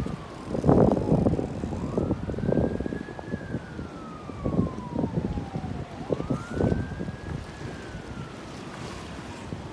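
A siren wailing: its single tone rises quickly, then falls slowly, and the cycle repeats about halfway through. Under it, gusty wind rumbles on the microphone.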